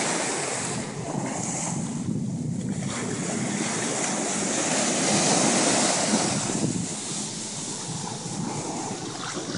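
Small ocean waves breaking and washing along the shore, with wind buffeting the microphone; a wave's wash swells up about halfway through.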